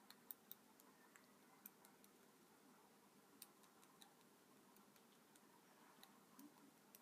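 Near silence: faint room hiss with a few scattered, light clicks as fingers work a small piece of polymer clay on a board.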